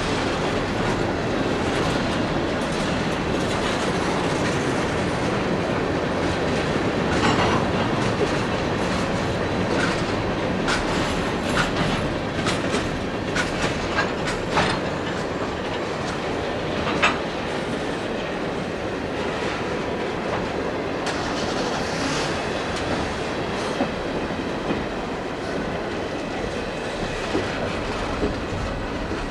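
Train cars rolling past with a steady rumble and the clickety-clack of wheels over rail joints, the clicks thickest in the middle stretch, with a faint wheel squeal.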